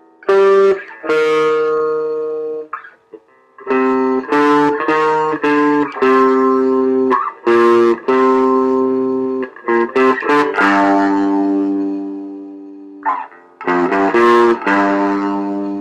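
Squier Stratocaster electric guitar picked in a riff of single notes and chords, some cut short and others left ringing. It pauses briefly near three seconds and again near thirteen seconds, after a chord that rings out for about two seconds.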